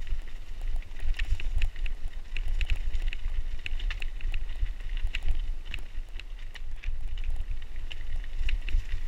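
Mountain bike rolling fast down rocky singletrack: a steady low rumble of wind and jolting on the microphone, with frequent sharp clicks and rattles from the bike and the stones under its tyres.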